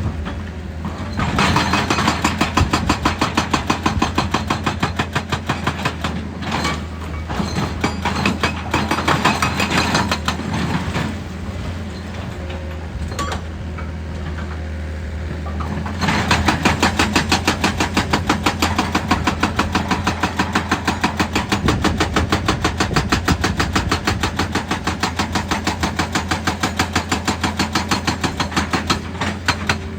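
Excavator's diesel engine running steadily under a fast, regular hammering on rock, a few blows a second. The hammering eases for a few seconds near the middle, then resumes louder.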